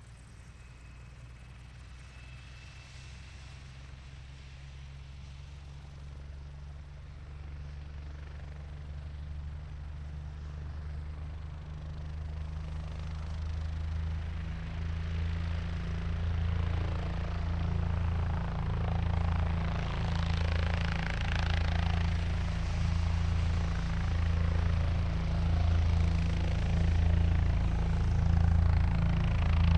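Helicopter engine and rotor running up, growing steadily louder, with a regular pulsing rotor beat coming in about halfway through.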